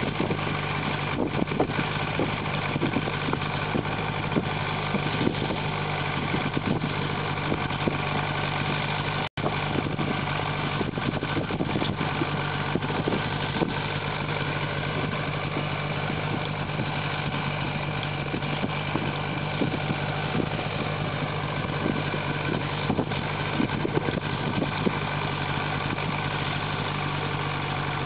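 An engine idling steadily, a constant low hum that does not change in speed, broken by a momentary dropout in the sound about nine seconds in.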